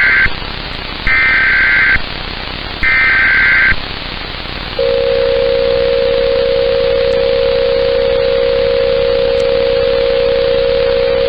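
Emergency Alert System SAME header over steady radio hiss: the end of one screeching data burst and then two more, each about a second long with second-long gaps. About five seconds in, a long steady single-tone attention signal begins.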